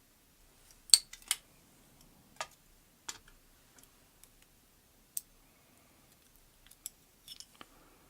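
Small metal lock pins and tweezers being handled during a lock teardown: a dozen or so sharp, light clicks and taps at irregular intervals, the loudest two close together about a second in.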